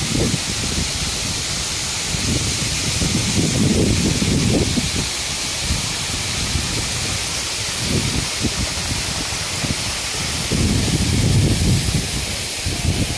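Waterfall splashing onto rocks, a steady rushing hiss, with wind buffeting the microphone in irregular low gusts.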